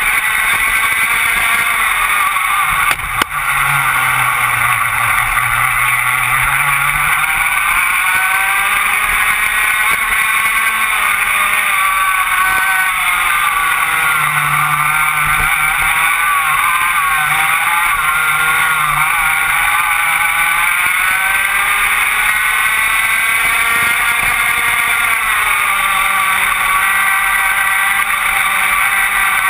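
Rotax Max 125cc two-stroke kart engine at racing speed, its pitch falling several times as it slows for corners and rising again as it accelerates out of them. A short knock about three seconds in.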